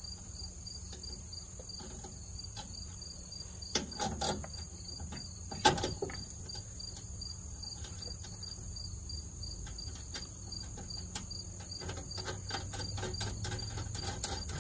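Ratchet wrench clicking in short runs as a nut is tightened onto the starter solenoid's battery-cable terminal, with two louder metal knocks about four and six seconds in. Crickets chirp steadily behind it.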